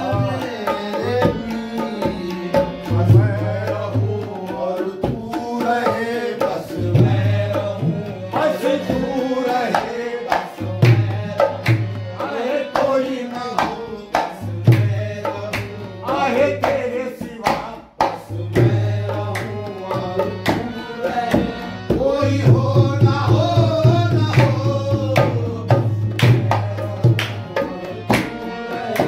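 Qawwali-style Sufi devotional music led by tabla playing a steady rhythm of quick strokes, with deep resonant bass-drum tones recurring under a bending melody line.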